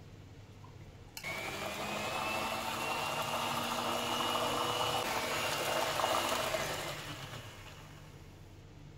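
An electric hand mixer switches on about a second in, its motor whining steadily as the twin beaters whisk puréed spinach into cake batter in a plastic jug. It runs down and stops near the end.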